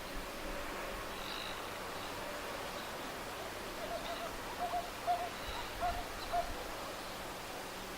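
A bird giving short, repeated double-note calls about four seconds in, over steady background hiss.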